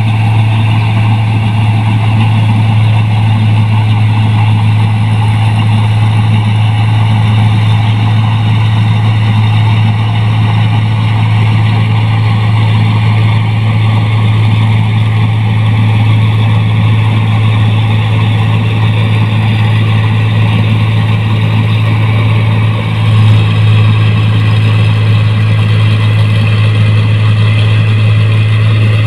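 New Holland 1545 combine harvester running steadily while cutting rice, its engine and threshing machinery giving a loud, constant low hum with a rushing noise above it. The sound wavers briefly about three-quarters of the way through.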